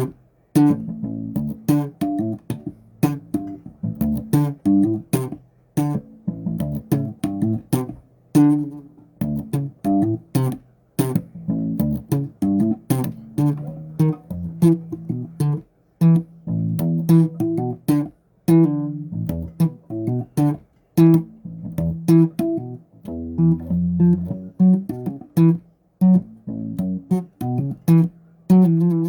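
Bass guitar played solo: quick plucked notes in short phrases broken by brief pauses, with one deeper low note about two-thirds of the way through.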